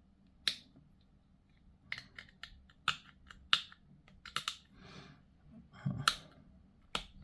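Hard plastic miniature parts clicking and tapping as they are handled and pressed together during push-fit assembly. There are irregular sharp clicks, with a brief soft rustle about halfway through.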